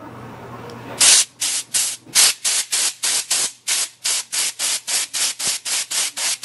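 Compressed-air blow gun firing rapid short blasts, about three or four a second, through the burner tube of a gas soldering iron to blow out its clogged nozzle. The blasts come after a soft rising hiss for about the first second.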